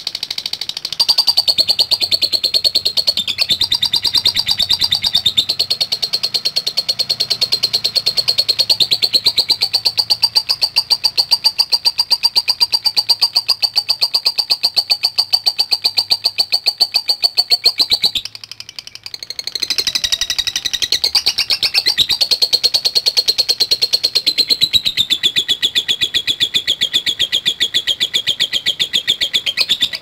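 Fischer's lovebird giving a long, high-pitched run of rapid ticking chatter (the 'ngetik' call). It breaks off briefly a little past halfway, then resumes and runs on at a slightly lower pitch.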